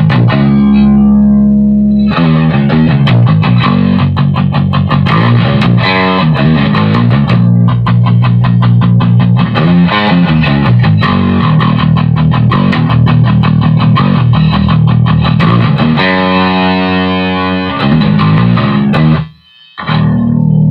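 Electric bass played through an Ampeg amp and speaker cabinet with a thick, crunchy distorted tone: quick runs of notes and riffs with a couple of longer held notes. The sound cuts out briefly about a second before the end, then picks up again.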